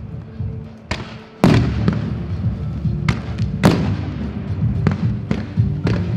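Aerial fireworks bursting at about 60 m: about eight sharp bangs at uneven intervals, the loudest about one and a half seconds in and again just before four seconds, each followed by a short rumbling echo.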